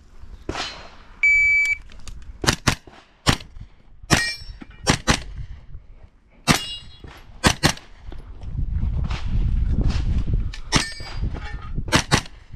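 A shot timer's start beep about a second in, then a 9mm JP GMR-15 pistol-caliber carbine firing a stage, mostly in quick pairs of shots, about a dozen in all. Steel targets ring after several hits. A pause of a couple of seconds with low rumbling noise comes before the last two pairs.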